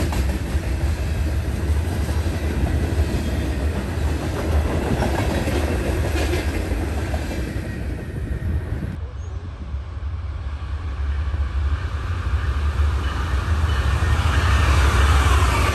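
Freight train of covered hopper cars rolling past, steel wheels rumbling and clattering on the rails. About nine seconds in the sound cuts abruptly. An Amtrak passenger train led by a diesel locomotive then approaches, and its rumble grows louder toward the end.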